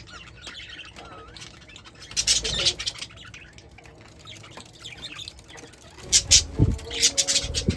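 Birds squawking, in two loud spells: one about two seconds in and another near the end.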